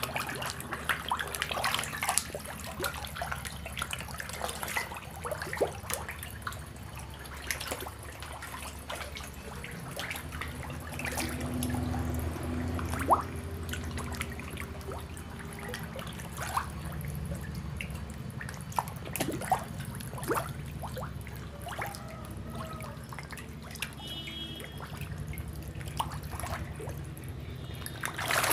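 Fish feeding at the surface of a crowded tank: many small, irregular splashes and drips as they take floating feed pellets, over a low steady hum.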